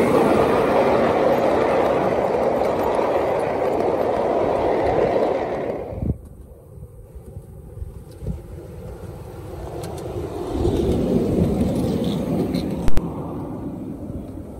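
Miniature ride-on railway train rolling along the track, a steady loud rumble of steel wheels on rail heard from aboard. About six seconds in it cuts to a much quieter trackside sound, with a few knocks and a passing train's rumble that swells and fades, and one sharp click near the end.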